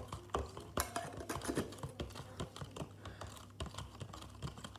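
Spoon stirring a chocolate drink in a plastic party cup: a quick, irregular run of clicks and taps as it knocks against the cup's sides.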